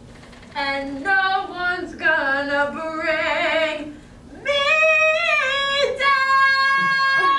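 A young female voice singing solo: a few short phrases with a wobbling vibrato, a brief pause, then long drawn-out held notes, the last one sustained for more than a second.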